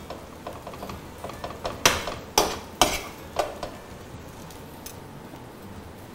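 A spoon stirring rice in a non-stick frying pan: light scraping and ticks, then four louder scrapes or knocks against the pan between about two and three and a half seconds in.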